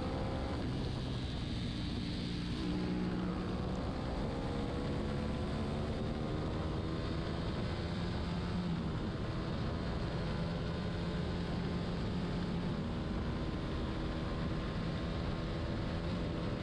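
Racing motorcycle engine running hard on track, with steady wind and road rush from the onboard camera. The engine note rises and falls with the revs, shifting a little under three seconds in.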